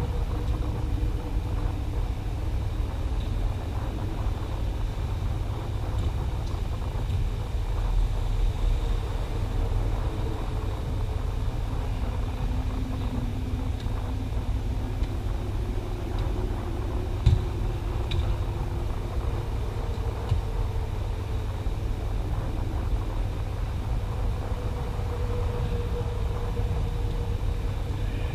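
Steady low rumble of background noise, with one sharp knock about seventeen seconds in and a fainter one a second later, the ball being struck.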